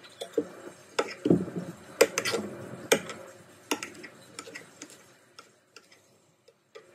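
Kitchen knife cutting a cucumber on a wooden cutting board: irregular knocks and taps of the blade on the board, busiest in the first three seconds, then sparser and fainter.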